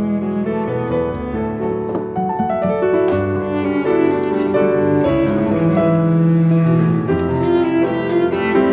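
Background music of slow, held string notes with piano, moving step by step from note to note.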